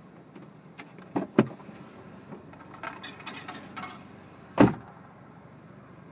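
Loose coins jingling and clattering as they are fed into a toll lane's coin machine, with a few sharp knocks: two just over a second in and a louder one about four and a half seconds in.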